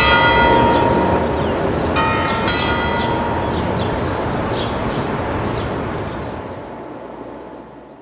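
Church bell ringing: a stroke sounds about two seconds in, and its ring dies away together with the one before it, over a steady low rumble and short high chirps. All of it fades out near the end.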